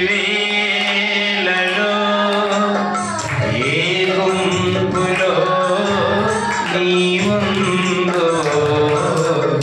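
Music with singing: a sung melody held over steady sustained notes, with no speech.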